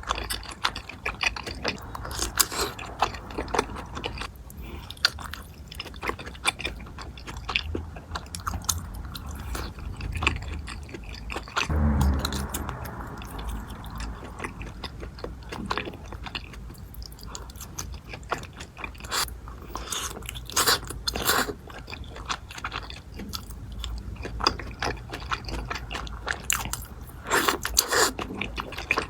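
Close-miked eating: chewing and biting, with many short crunchy crackles and clicks throughout and a heavier, lower burst about twelve seconds in.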